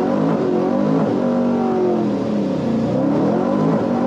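Supercharged 2010 Chevrolet Camaro SS 6.2-litre V8 pulling hard under full acceleration from a launch. The engine note climbs, drops near the middle as for a gear change, and climbs again.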